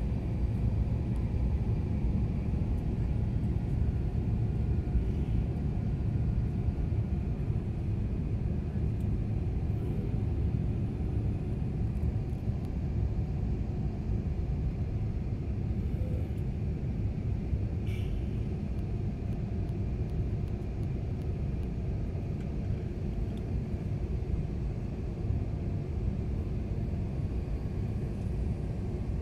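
Steady low rumble of a jet airliner's engines and airflow, heard from inside the cabin during the climb after takeoff.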